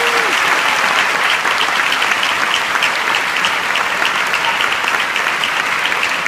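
A full theatre audience and the cast on stage applauding steadily after a farewell speech, with a short shout from one voice at the start.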